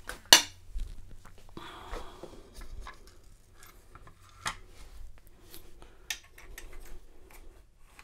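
Lock parts and a plastic pin tray being handled on a rubber bench mat: a sharp click about a third of a second in, the loudest sound, then scattered light clicks and taps, with a short stretch of rubbing about two seconds in.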